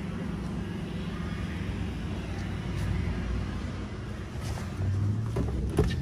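A steady low mechanical hum, joined by a second, lower drone about five seconds in, with a sharp click just before the end.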